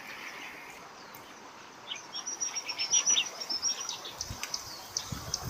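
A small bird chirping: a quick run of short, high chirps that starts about two seconds in and goes on for about three seconds.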